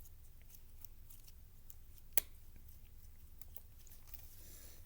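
Fidget toys and slime being handled by hand: faint scattered small clicks, with one sharper click about two seconds in.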